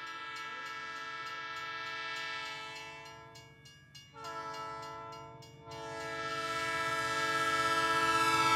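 A train sounding a long horn, a chord of several held tones over a light rhythmic clatter. The horn dips and breaks off about four seconds in, then sounds again and grows louder near the end.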